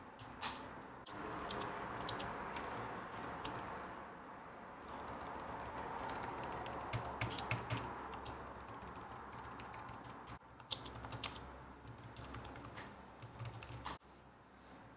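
Computer keyboard keys being typed: irregular clusters of clicks as shell commands are entered, over a faint steady hiss that fades out about two thirds of the way through.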